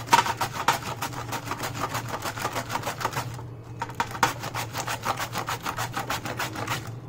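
Cabbage wedge shredded on a handheld flat-blade vegetable slicer: quick rhythmic scraping strokes of the leaves over the blade, about five a second. The strokes pause briefly a little past halfway, then start again.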